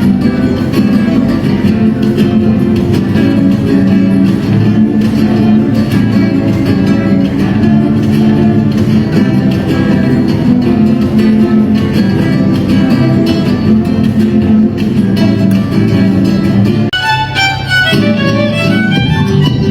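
A string ensemble playing, with guitars strumming and violins. About seventeen seconds in, the low accompaniment drops away and a higher melodic line carries on.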